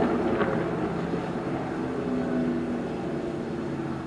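Diesel locomotive engine drone, steady and slowly fading.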